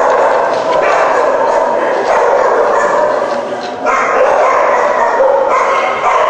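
A steady din of many animal calls, yelping and barking over one another, with voices mixed in. The din dips briefly just before four seconds in.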